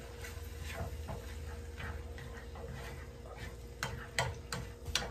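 A spatula stirring a vegetable and salsa filling in a frying pan, with scattered light taps and scrapes on the pan that come more often near the end, over a faint steady hum.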